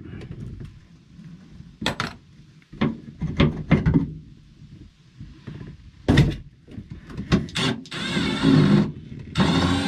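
Cordless drill-driver backing screws out of the wooden panels of a speaker enclosure: knocks and clunks of the tool and boards being handled, then two short runs of the drill near the end.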